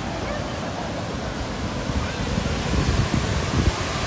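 Steady rushing roar of a large river waterfall, with wind buffeting the microphone in uneven low thumps that grow stronger in the second half.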